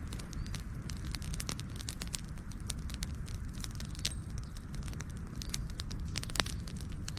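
Campfire burning, with irregular sharp crackles and pops over a steady low rumble of the flames; one louder pop a little before the end.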